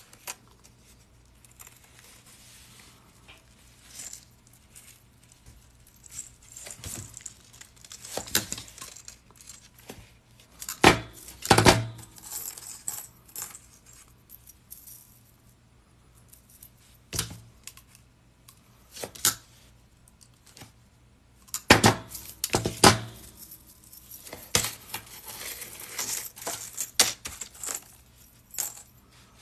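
Small metal chainmail jump rings clinking and jingling as they are picked from a pile and worked into the weave by hand, in irregular scattered clicks with a few louder clusters of clinks.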